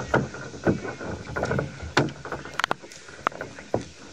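Irregular knocks, bumps and rubbing of a boat hull being gripped and lifted by hand, carried through the hull to the mounted microphone. The knocks come thick at first and thin out toward the end.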